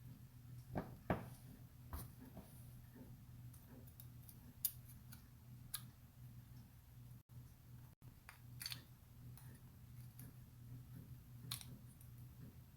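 Scattered small clicks and taps of metal trigger-group parts and tools being handled while a Mossberg 500 fire control unit is reassembled, the loudest about a second in, over a low steady hum.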